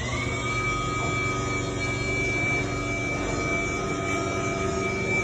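Chamberlain B970 belt-drive garage door opener running steadily with a high whine that has just risen as the motor came up to speed. It is driving the trolley along the rail to re-engage the door.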